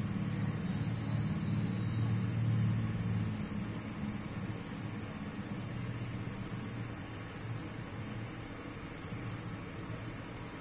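Steady, high, pulsing trill of crickets throughout, with a low rumbling noise during the first few seconds.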